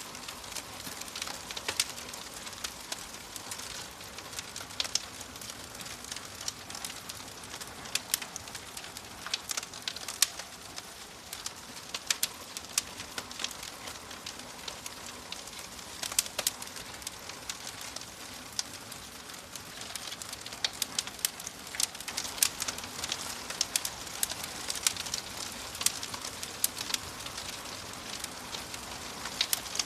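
Fire crackling: frequent sharp pops and snaps over a steady hiss, the snaps coming thicker in the second half.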